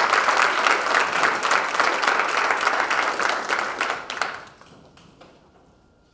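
Audience applauding, the clapping fading out about four and a half seconds in.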